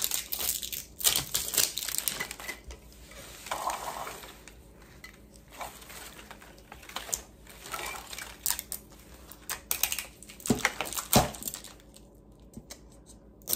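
Plastic wrapping being peeled and crinkled off a Mini Brands capsule ball by hand, with irregular crackles and sharp clicks of plastic that thin out near the end.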